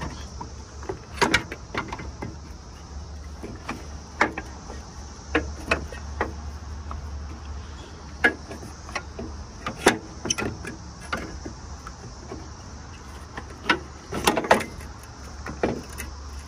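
Irregular sharp knocks and clicks as a new metal engine motor mount is handled and pushed into place by hand in a car's engine bay, with a cluster of louder knocks about fourteen seconds in.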